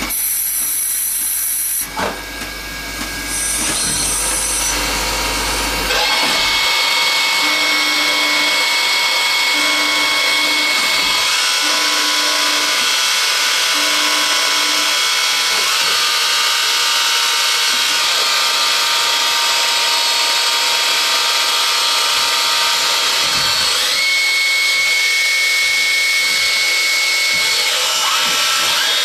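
Nomura NN-20JR Swiss-type CNC automatic lathe running and machining a brass part: a steady mix of spindle and cutting noise that gets louder about six seconds in. A high steady whine comes and goes over it.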